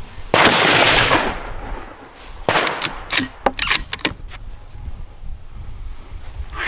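A single .308 rifle shot from a Savage 110 Tactical bolt-action rifle, fading over about a second. About two seconds later comes a quick run of sharp metallic clicks and clacks as the bolt is worked to eject the case and chamber the next round.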